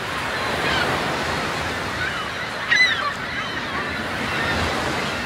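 Seabirds calling over the steady wash of the sea, with one loud call about halfway through.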